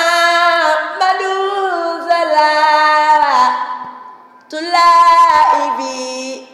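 A single high voice chanting a khassida, a Mouride devotional poem in Arabic, unaccompanied. It sings in long held notes: one phrase, a breath of about a second, then a second phrase.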